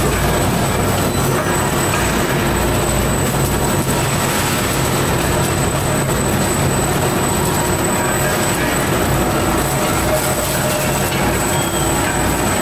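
Green bean packing-line machinery running: the conveyors, their gear motors and the pouch bag filler make a steady, loud mechanical noise with a low hum and a thin, steady high whine.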